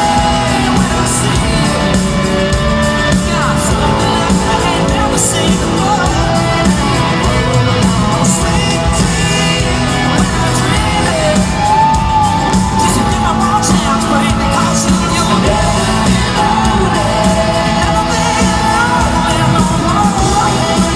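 Live rock band playing loud with a lead singer, with shouts and whoops mixed in, echoing in a large hall.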